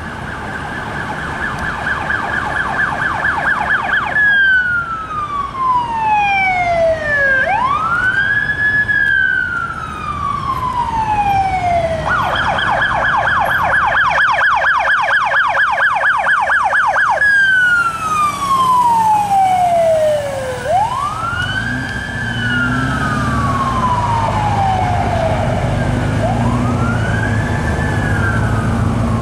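Fire department squad truck's electronic siren switching between a fast yelp and a slow wail. It yelps for about the first four seconds, wails until about twelve seconds in, yelps again until about seventeen seconds, then wails to the end. A low vehicle engine rumble comes in under it in the last third.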